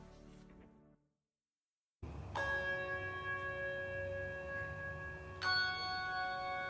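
Handbell choir ringing: a chord struck about two and a half seconds in and left to ring, then a second, higher chord about five and a half seconds in. Before it, the end of the preceding choral music fades away into a second of silence.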